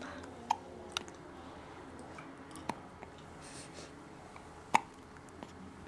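A newborn baby hiccupping: short, sharp hiccups roughly every two seconds, the loudest about three-quarters of the way through.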